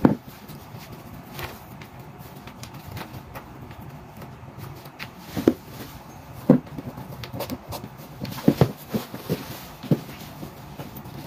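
Sneakers being put on and laced on a wooden floor: scattered soft knocks and handling rustles, with a low steady hum underneath.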